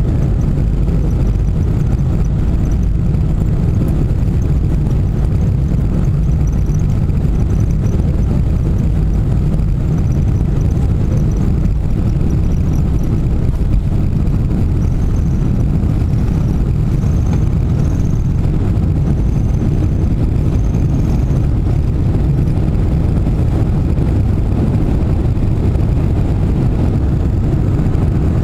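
Boeing 747-400 on its takeoff run, heard from a cabin window seat over the wing: the four engines at takeoff power and the runway rumble make a loud, steady low rumble through the roll and liftoff.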